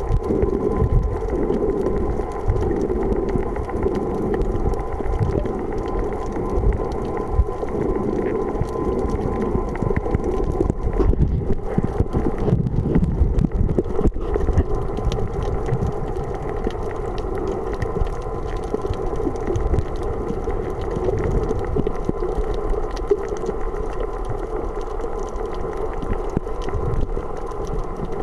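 Steady, muffled underwater noise picked up by a camera held underwater in a waterproof housing, low and even, with a faint steady hum above it.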